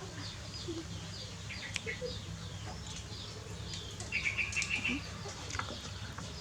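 Small birds chirping repeatedly, short high notes a couple of times a second, with a quick rapid trill about four seconds in, over a steady low hum.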